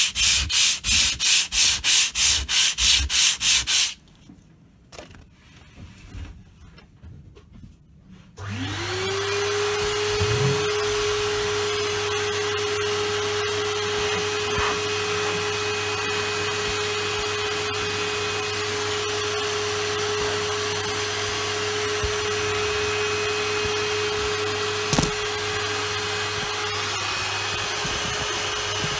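Sandpaper rubbed by hand over dried filler in quick, rhythmic back-and-forth strokes for about four seconds. After a few seconds of quiet, a vacuum cleaner switches on, its motor whine rising and settling into a steady hum as it sucks up the sanding dust, with one brief knock near the end.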